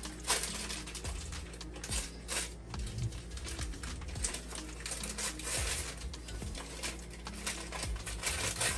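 Packaging of refrigerated pastry sheets being opened and handled: crackling and crinkling with many small clicks and taps throughout.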